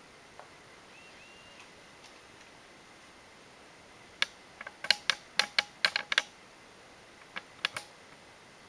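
Quick irregular run of about a dozen sharp key clicks on a MacBook Pro keyboard over two seconds, then two more a little later, as the machine is being used after power-on.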